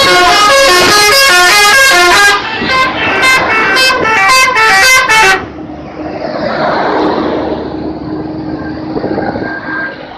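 A bus's 'telolet' musical multi-tone horn playing a quick tune of changing notes, ending in a few short blasts about five seconds in. After that a steady rushing noise with a low hum carries on.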